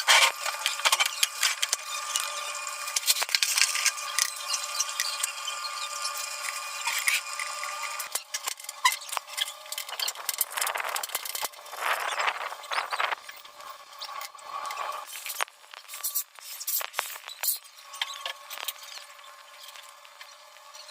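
Metal hand tools clinking and scraping on metal parts during mechanical repair work, a rapid scatter of sharp clicks with a longer scraping stretch just past the middle.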